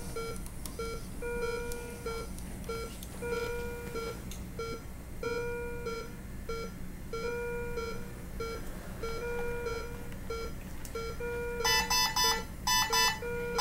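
Medical equipment alarms sounding during an ECMO pump power failure: a steady electronic beeping repeats about once a second. Near the end a second alarm joins, louder and shriller, beeping in quick groups.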